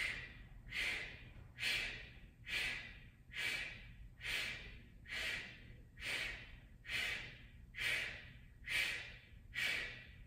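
Kapalbhati breathing: a woman blowing short, forceful exhales out through the mouth, a little more than one a second, each a sharp hiss that quickly fades. The inhales happen on their own between the exhales.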